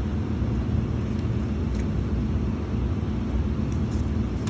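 Steady low mechanical rumble with a faint hum.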